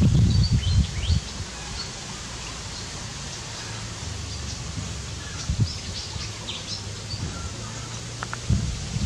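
Outdoor ambience: scattered short bird chirps over a steady background hiss. Loud low rumbling noise in the first second and again near the end.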